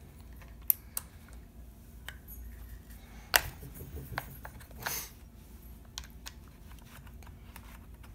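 Allen wrench working the stock screws out of a Savage Axis rifle: scattered small metallic clicks and handling sounds. The sharpest click comes about three seconds in, with a short scrape a couple of seconds later.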